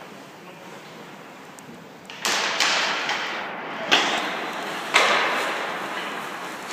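Quiet at first, then from about two seconds in a few sharp thuds, roughly a second apart, each trailing off in a wash of echoing noise.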